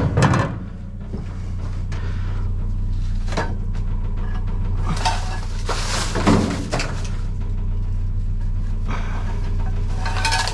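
Rummaging through a dumpster: items being shifted and knocked about, with several bursts of clattering and knocks over a steady low hum.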